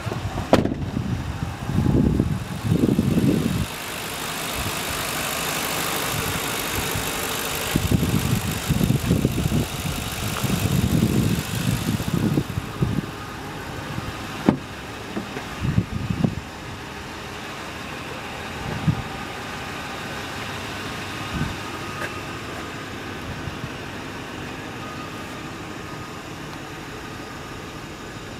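A 2010 Ford F-150's 4.6-litre Triton V8 idling. Irregular low rumbles come in the first few seconds and again near the middle, and a few sharp knocks follow; after that the idle runs on evenly.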